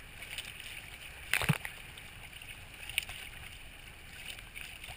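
Water splashing and slapping against the hull of a Hobie Tandem Island sailing kayak under way. There is one loud slap about a second and a half in and a smaller one near three seconds.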